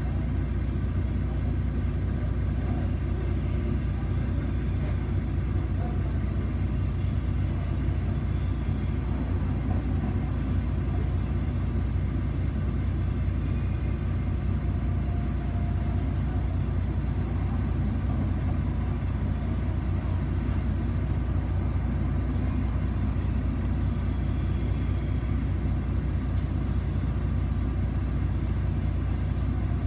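City bus engine and road noise heard from inside the cabin: a steady, even low rumble with no starts, stops or changes.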